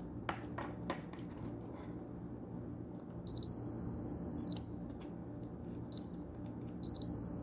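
Fluke multimeter's beeper giving a steady high beep for about a second, a short blip near six seconds, then a longer beep near the end, each time the probes across a diode read almost zero: the diode is shorted. A few light clicks of the probe tips come before the first beep.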